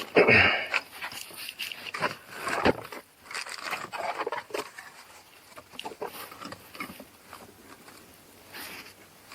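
Irregular clicks, scrapes and knocks of hands and a screwdriver working on a car's ignition switch assembly. The loudest handling noises come in the first half-second, with another sharp knock a little under three seconds in.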